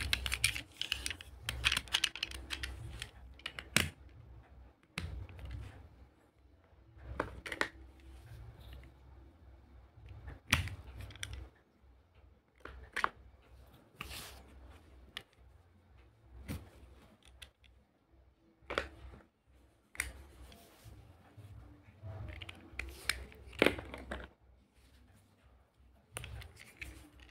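Hard plastic toy pieces being handled: a plastic ice-cream scoop and toy ice-cream balls clicking and knocking against a plastic toy ice-cream stand and its cones. The taps come irregularly, some single and some in short rattling clusters, with quiet gaps between.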